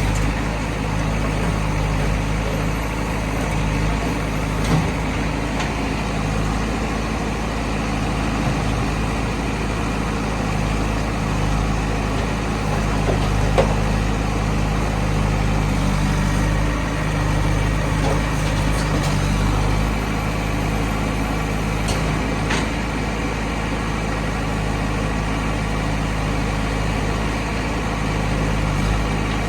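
JCB backhoe loader's diesel engine running steadily as it works loading mud, with a few brief knocks along the way.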